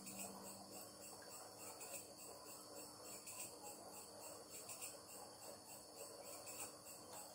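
Faint insect chirping, high-pitched and repeating evenly several times a second, over a faint low steady hum.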